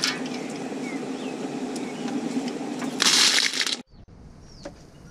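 Freshwater clams (barisara) being scooped and stirred by hand in a metal basin of water, the shells clattering against each other and the metal, with a louder rattle of shells about three seconds in. The clatter stops abruptly just before four seconds.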